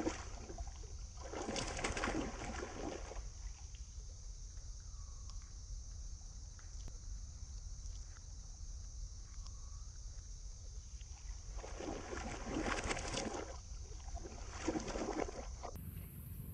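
Muddy pond water splashing and sloshing as macaques wrestle and wade through it, in four bursts: at the start, about two seconds in, and twice near the end. A steady high hiss and a low rumble run underneath.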